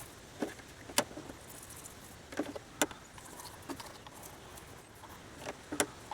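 Old toothbrush scrubbing car battery terminals with a baking soda and water solution: faint, irregular scrapes and light clicks of the bristles and brush against the terminal posts.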